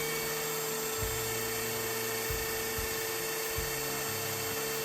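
A woodworking power tool running steadily with a constant whine while an edge of a pine board is cleaned up, over low background music.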